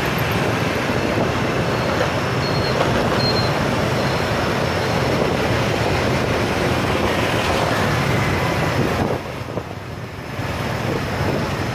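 Steady din of motor scooter and motorbike traffic heard while riding in the middle of it: many small engines running together with road noise. It drops to a quieter spell about nine seconds in, then picks up again.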